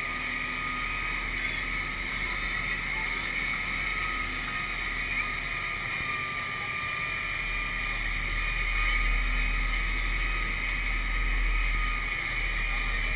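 Amphibious truck under way on a river: a steady running drone with water rushing along the hull. A low wind rumble on the microphone grows stronger after about eight seconds.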